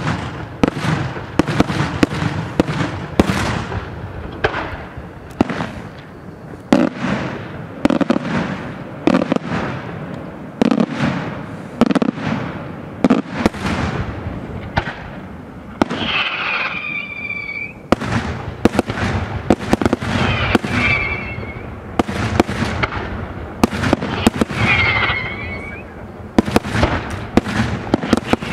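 Daytime fireworks display: a continuous barrage of aerial shells and salutes bursting, about two or three sharp bangs a second. Short high whistles cut in several times from about halfway through.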